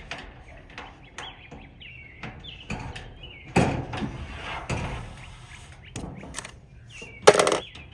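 A few sharp knocks and handling noises, the loudest about three and a half seconds in and again near the end, with birds chirping in the background.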